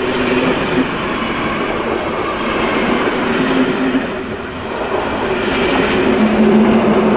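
Passenger coaches rolling past close by, their wheels rumbling on the rails with a few faint clicks. Near the end the train's rear DR class 110 diesel locomotive passes and a steady engine hum grows louder.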